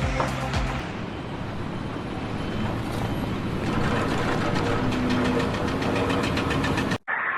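Heavy engine-driven machinery running, with a fast, even mechanical clatter setting in about halfway through; the sound cuts off abruptly near the end.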